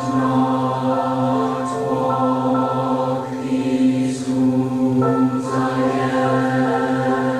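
Recorded choral music: a choir singing long held chords, with crisp 's' sounds from the voices every second or two.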